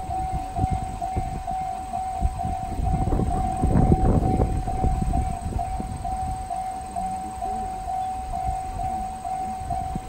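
Japanese railway level-crossing alarm, a JR Central–style electronic bell ringing in a fast, even repeat. A low rumble swells and fades about four seconds in.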